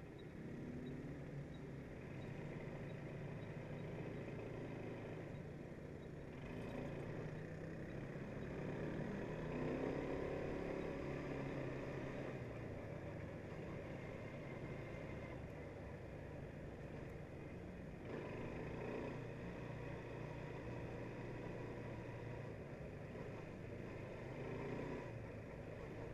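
Quad bike engine running while riding at low speed, its note rising and falling with the throttle, loudest about ten seconds in.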